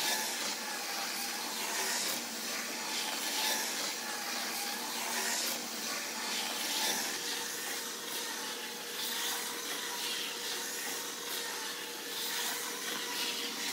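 HO-scale model locomotive running laps of the track: a steady whir of its small electric motor and wheels rolling on the rails, with a faint whine that wavers in pitch.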